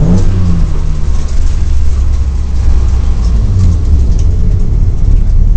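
BMW M3 race car engine heard from inside the stripped cabin, running loud at low speed with a deep low rumble. The revs rise and fall once near the start, then hold fairly steady.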